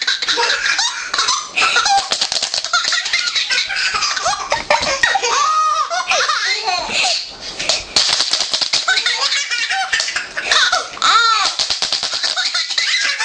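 Baby belly-laughing hard in long runs of rapid, breathy bursts, the pitch rising and falling in squealing peaks.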